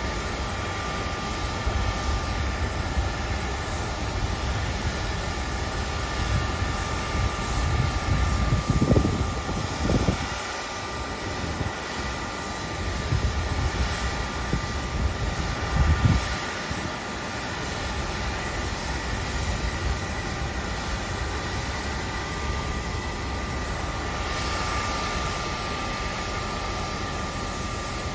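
Steady high whine over an even hiss from a parked Embraer E170 jet airliner at the gate, typical of its auxiliary power unit running. Wind buffets the microphone in low gusts about nine, ten and sixteen seconds in.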